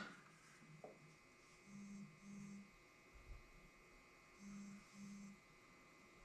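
Near silence: quiet room tone, with four faint short buzzy sounds in two pairs, about two seconds in and again near five seconds.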